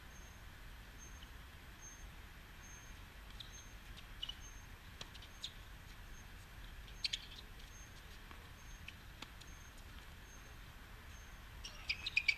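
Faint, sharp thwacks of a tennis ball on rackets and the hard court during a doubles rally, a few seconds apart. Short high bird chirps, several together about 7 seconds in and again near the end, over a low outdoor hum.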